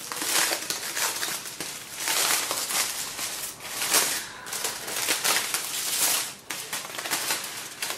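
Aluminium foil crinkling in several bursts as it is pulled open from around a baked marrow.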